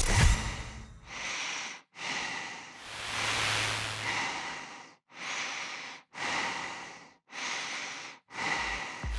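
Heavy breathing sound effect: a run of loud, hissy breaths in and out, about one a second, with a deep thump at the very start.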